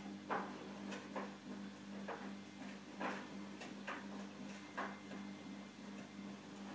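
A steady low electrical hum with irregular light clicks, about one or two a second.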